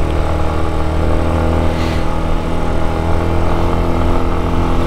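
Yamaha XTZ Lander 250's single-cylinder engine running at a steady pace under way, heard through a microphone inside the rider's helmet.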